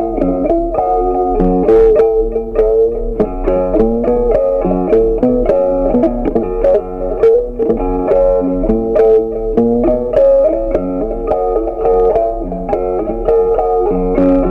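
Background music: a melody of quick plucked notes at an even, steady loudness.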